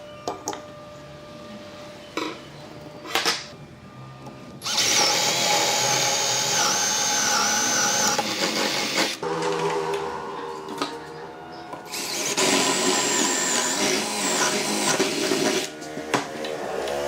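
A handheld power tool runs in two stretches of several seconds each, its high whine wavering in pitch as it works, after a few sharp knocks.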